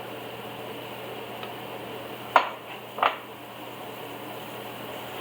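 A stirring utensil knocking twice against the cooking pot, two short ringing clinks a little over half a second apart, over a steady low hiss.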